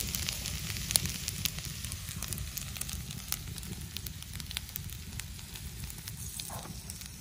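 Wood fire crackling in a campsite fire-pit grill, with meat in a wire grilling basket and fried rice in a cast-iron skillet sizzling over it. Sharp pops go off irregularly throughout, one louder about a second in.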